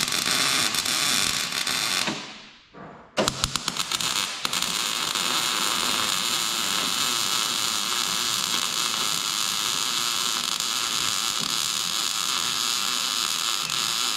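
Wire-feed welder arc crackling and hissing as beads are run on steel: a short run of about two seconds, a brief pause, then a longer steady run that sputters a few times as it strikes.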